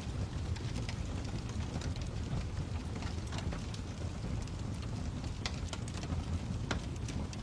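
Fire crackling: a steady low rumble with irregular sharp pops and snaps scattered through it.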